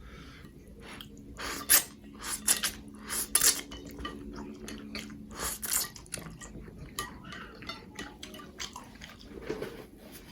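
A person eating spicy noodles close to the microphone: chewing, with irregular clicks of cutlery against the dish. The sharpest click comes about two seconds in.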